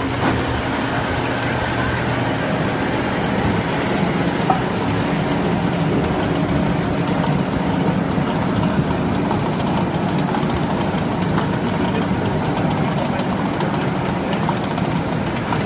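Potato french-fry processing line running: its conveyors and rotating rollers make a steady mechanical noise with a low hum underneath.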